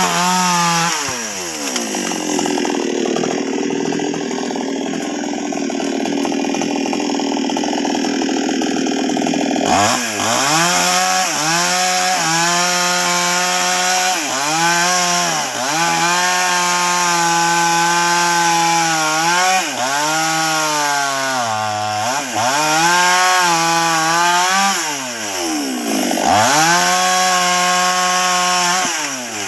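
Two-stroke Nwesst 628 chainsaw cutting sengon wood. Its engine note drops repeatedly as the chain bites, then climbs back, over and over.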